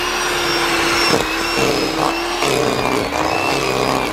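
Electric hand mixer running steadily as it creams butter in a bowl, its motor pitch dipping briefly about two and a half seconds in.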